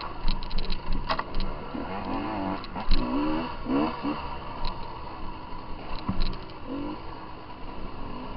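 Dirt bike engines revving up and down again and again under hard riding, with scattered sharp knocks.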